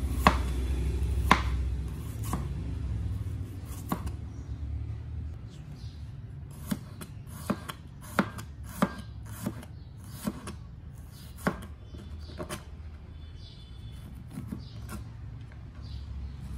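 Wide-bladed kitchen knife slicing shallots on a plastic cutting board: sharp, irregular knocks of the blade on the board, roughly one a second. A low hum sits under the first few seconds and fades out.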